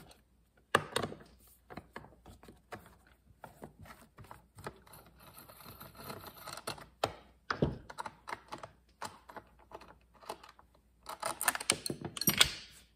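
Scattered light clicks and taps of a nut driver and the chainsaw's plastic air filter parts being handled as the air filter and its base are taken off, with a busier, louder clatter near the end.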